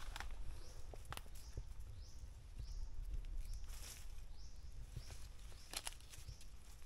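Footsteps and rustling on the forest floor, with a few sharp cracks. Short high rising chirps repeat about once a second in the background.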